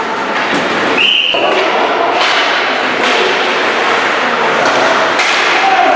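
Play in a reverberant sports hall: ball thumps and impacts over the crowd's background noise, with one short high whistle blast about a second in.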